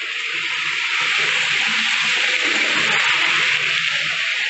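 A loud rushing hiss that builds to a peak and starts to fade near the end, over a faint steady low hum.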